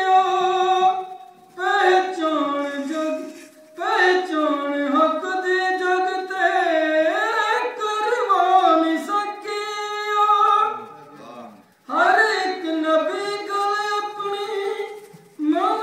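A man singing a devotional poem solo without accompaniment, in long ornamented phrases with short breath pauses three times.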